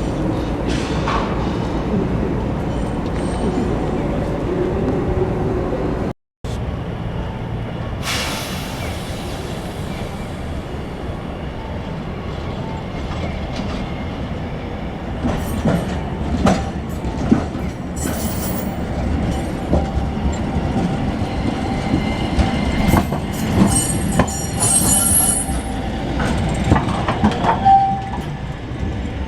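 Toyama city streetcars (trams) running at the station stop: a steady rumble of motors and wheels, with repeated clacking of wheels over rail joints and points in the second half.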